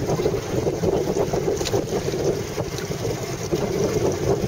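Steady wind noise buffeting the microphone on a boat at sea, over water noise, with a faint high click about a second and a half in.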